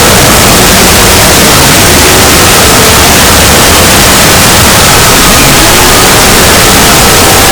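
Extremely loud, heavily distorted and clipped noise filling every pitch, with a few faint held tones showing through that shift in pitch about halfway. It is a deliberately overdriven meme horror sound effect.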